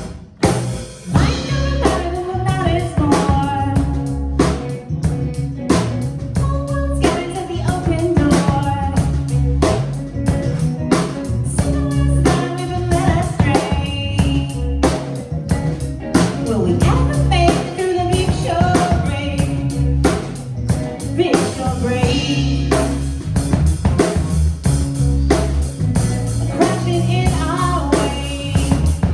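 A song: a singer over a drum kit and guitar with a steady beat.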